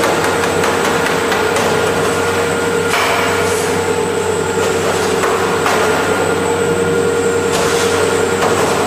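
Cheese-dairy processing machinery running steadily with a constant whine and low hum, over the rush of cheese curds and whey pouring down a stainless steel chute into a cloth bag.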